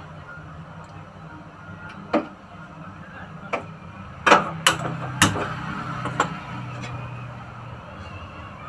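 A few sharp clicks and knocks of kitchen utensils, about six in all and loudest about halfway through, over a steady low hum.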